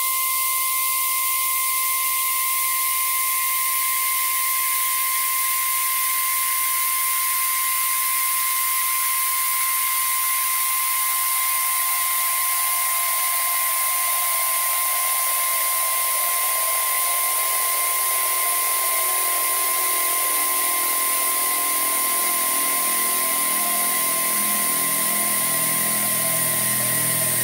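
Experimental electronic synthesizer music: steady high sine-like tones held over a bright hiss, with a noise layer that slowly sinks lower in pitch. A low pulsing pattern comes in near the end.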